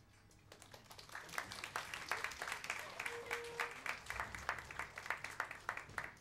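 Small audience applauding, starting faintly about half a second in and building into steady clapping.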